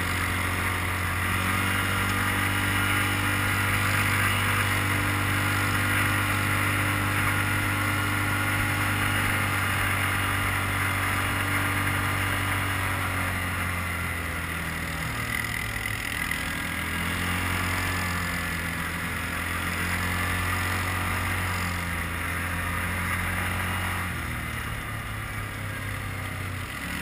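Quad bike (ATV) engine running steadily under way. Its note drops about halfway through and shifts again near the end.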